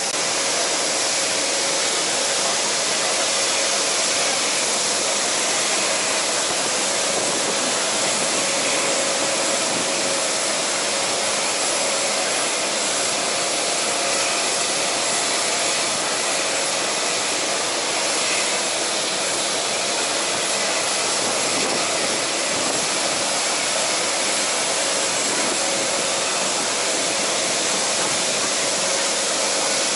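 Steady rushing whine of an aircraft turbine running continuously, with a steady hum-like tone underneath.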